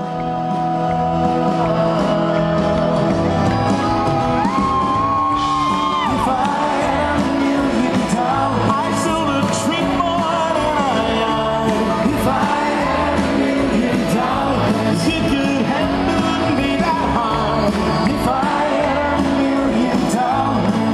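Music with a singing voice, carrying a melody over full accompaniment at a steady level.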